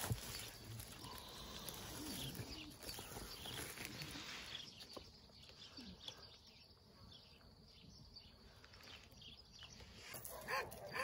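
Young kittens mewing faintly and now and then from inside a plastic pet carrier, over a steady outdoor background hiss.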